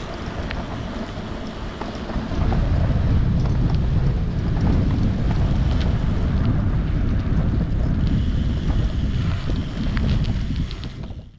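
Wind buffeting the microphone of a camera riding on a moving bicycle, a heavy low rumble with scattered light ticks. It grows louder about two seconds in and fades out just before the end.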